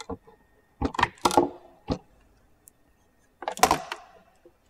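Knocks and clatter of the inlet plenum chamber on a Lamborghini LM002's V12 engine being worked loose by hand. A few clicks, a cluster of knocks about a second in, and a louder burst of clatter about three and a half seconds in.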